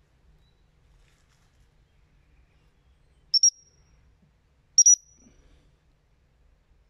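A dog-training whistle blown by the handler: two short, shrill blasts about a second and a half apart, a signal to the working springer spaniel.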